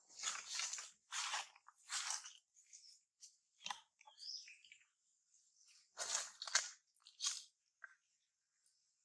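Dry leaf litter crunching and rustling in irregular short bursts as the monkeys shift about on it, over a faint steady high hiss.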